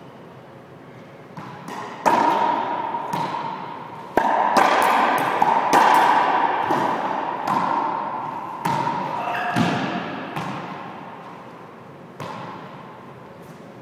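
Racquetball rally in an enclosed court: about a dozen sharp hits of the ball against racquets, walls and floor, each with a long echoing ring off the hard walls. The hits come thickest in the middle and thin out near the end.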